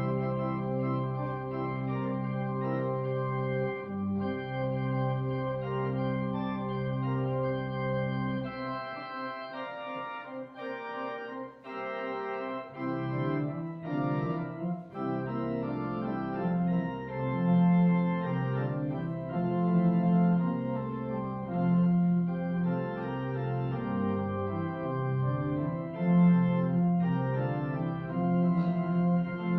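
Church organ playing slow, sustained chords over a bass line; the bass drops out for a few seconds about nine seconds in, then returns.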